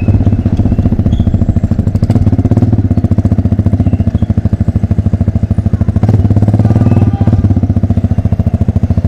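Motorcycle engine with an open exhaust idling, a loud rapid even popping beat, picking up slightly for a moment about six seconds in.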